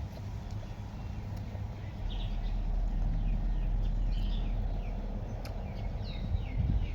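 Birds chirping: short falling calls repeated several times from about two seconds in, over a steady low rumble.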